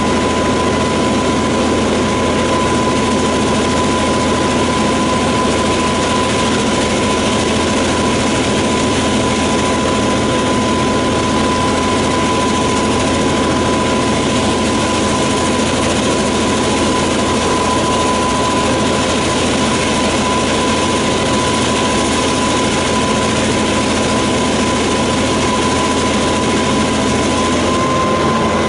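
DQ class diesel-electric locomotive running steadily while hauling a loaded ore train: a constant engine drone with a steady high whine held on one pitch.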